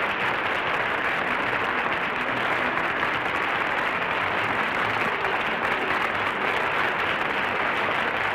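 Studio audience applauding steadily, with the muffled, narrow sound of an old television recording.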